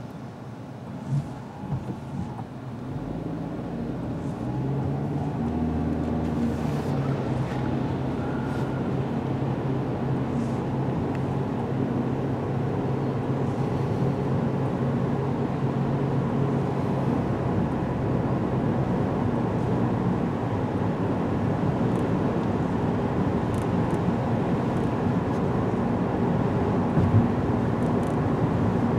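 Car engine and tyres on a wet road, heard from inside the cabin. The car pulls away from a stop, and the engine and road noise build up over the first few seconds. After that comes a steady hum of engine and tyre hiss at cruising speed.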